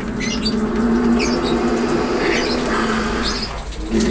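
King cobra growling: a long, low, rasping growl that breaks off briefly near the end and starts again. Faint short high chirps sound over it.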